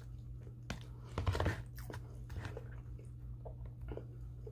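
Close-up chewing of a mouthful of rice with vegetables: soft wet mouth clicks, with a louder burst of chewing about a second in, over a low steady hum.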